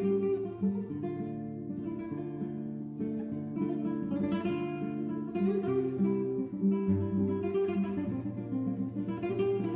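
Background music: an acoustic guitar playing a Latin-style tune with strummed chords.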